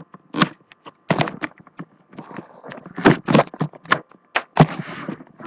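Plastic Lego bricks of a partly built helicopter model clicking and clattering as it is handled close to the microphone: an irregular run of sharp clicks and knocks, the loudest about three and four and a half seconds in.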